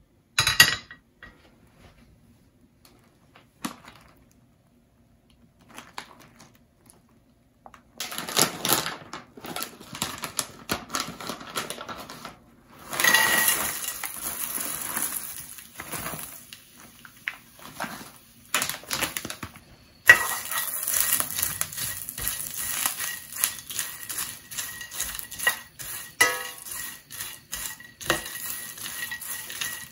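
A stainless steel pan knocks once onto the gas burner grate, then after a quiet stretch dried shrimp are tipped into the oiled pan and stir-fried with a spatula: the dry shells rattle and clatter, and the spatula scrapes against the steel.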